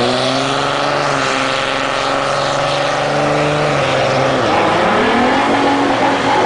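A 2007 Dodge Ram's 5.9 L Cummins turbodiesel launching down a drag strip at full throttle. The engine note rises, drops briefly about four seconds in, then climbs again. The truck runs an HTT turbo that the owner finds slow to spool.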